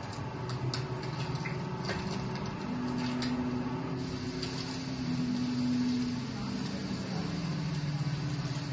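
Low, long-held droning tones from a video installation's soundtrack, heard through the gallery room. The pitch shifts every few seconds, and a few faint clicks fall in the first three seconds.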